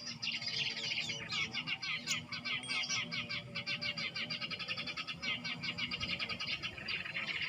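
Small songbirds twittering: a dense, continuous stream of rapid high chirps.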